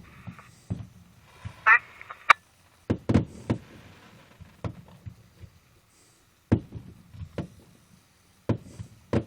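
Fireworks going off: an irregular series of sharp bangs and thuds, coming in clusters. A brief squelch burst from a police scanner sounds about two seconds in, ending with a click.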